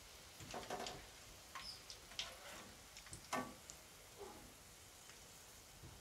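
Faint, scattered crackles and ticks of hot oil frying in a pan.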